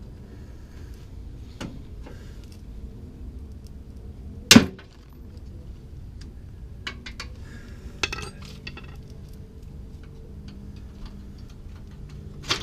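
Hand tools clinking against metal on the truck's front suspension, with one loud, sharp metal strike about four and a half seconds in, as force is put on a stuck upper control arm part to free it.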